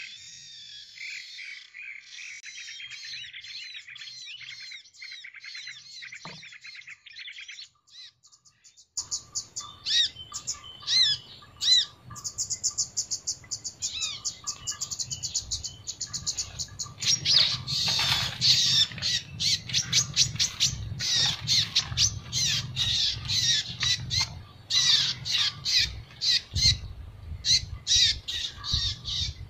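Many small birds chirping and twittering in quick, overlapping calls. About nine seconds in, a steady background noise comes up and the chirps become louder and busier.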